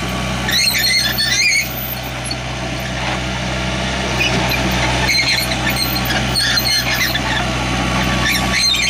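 Diesel engine of a Hyundai R555-7 mini excavator running steadily. High squealing comes and goes over it: about half a second in, again between five and seven seconds, and near the end.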